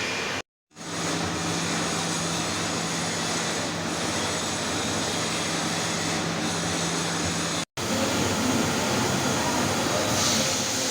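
Steady mechanical running noise of a CNC machine, with a low steady hum through the middle; the sound cuts out completely for a moment twice.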